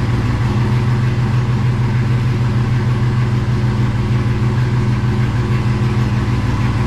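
Chevrolet Camaro engine idling steadily on a cold start, heard from inside the cabin, under the steady rush of the radiator fans running at full power. The fans came on at once and would not switch off because of a misplaced ground wire.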